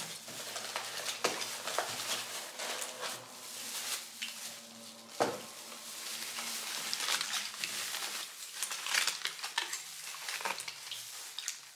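Aluminium foil wrapping crinkling and crackling as gloved hands unwrap it, in a run of small sharp crackles with a louder crinkle about five seconds in.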